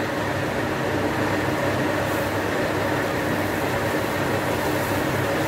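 Steady hum and hiss at a gas stove while pork and sauce simmer in a wok, with no stirring or clicks.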